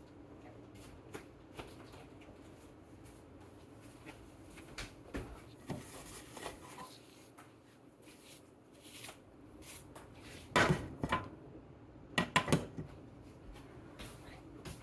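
Kitchen utensils knocking and clattering against a frying pan and plate, scattered light taps with two bursts of louder clanks near the end.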